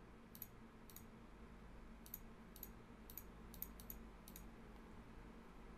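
Computer mouse button clicking, about nine faint, sharp clicks at an uneven pace, the clicks of deleting devices one after another from a web page, over a faint steady low hum.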